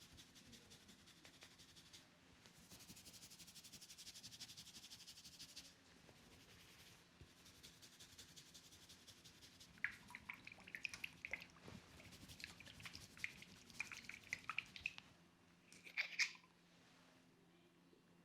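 Close-miked head massage sounds: fingers rubbing and scratching through hair for the first few seconds, then a run of light clicks and squishes with two sharper snaps, about ten and sixteen seconds in.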